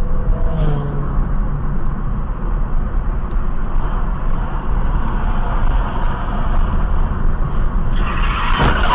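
Steady road and engine rumble of a moving car, heard from inside the cabin. Near the end, a sudden loud burst of tyres skidding as a car cuts across just in front.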